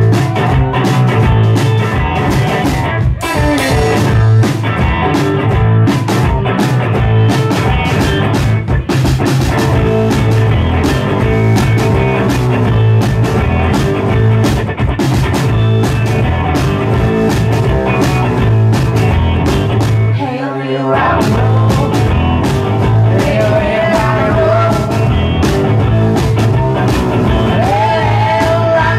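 Live rock band playing: driving electric guitar over a steady drum beat. The band cuts out for a moment about twenty seconds in and then kicks back in. A man's singing voice enters over it near the end.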